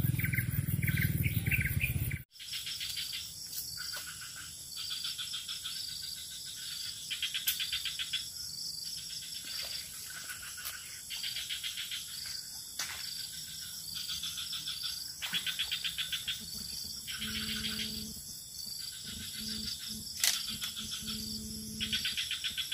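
Insects trilling in repeated high, rapid buzzing bursts about every second or two, a swamp-side insect chorus. After a louder rumble in the first two seconds that cuts off abruptly, a low hum comes and goes near the end.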